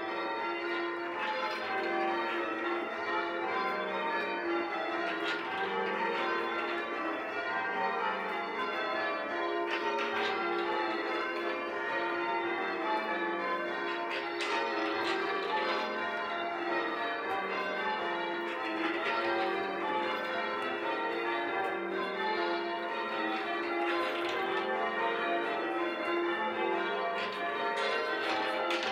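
Church tower bells being change rung: a continuous, even run of bell strikes.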